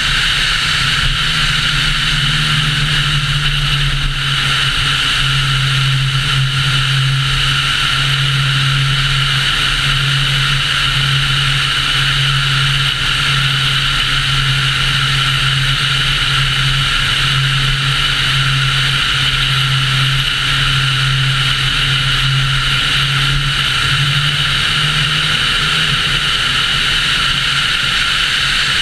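Car cruising at highway speed: a steady rush of wind and road noise over a constant low engine hum.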